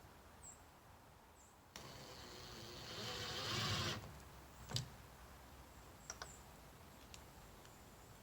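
A rushing, hiss-like noise that starts suddenly, swells for about two seconds and cuts off, followed by one sharp knock and a few faint clicks.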